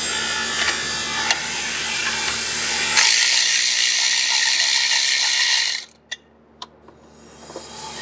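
Cordless electric ratchet running, backing out the bolts that hold the stock weights in a Polaris RZR 1000's primary clutch. A louder run starts a little before halfway and stops sharply about three seconds later, followed by a couple of clicks.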